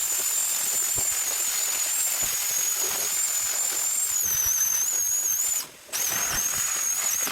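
Sawzall reciprocating saw cutting into a scrap pump: a steady high motor whine over a harsh hissing rasp of blade on metal, stopping briefly about six seconds in and then starting again.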